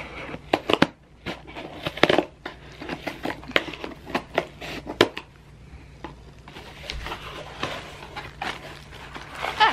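Scissors cutting through the packing tape on a small cardboard box, a quick run of sharp snips and crackles, then the cardboard flaps being pulled open with softer rustling over the last few seconds.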